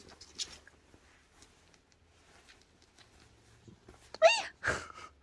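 Calico cat pawing and swatting at a towel, with soft rustles and scratches, then about four seconds in a short high-pitched cry followed at once by a sharp breathy burst.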